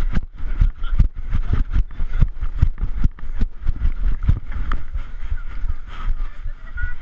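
Footfalls of a person moving on foot, jolting a body-worn camera with each stride: a steady run of dull thuds, about two to two-and-a-half a second, with the rustle of movement on the microphone and faint voices.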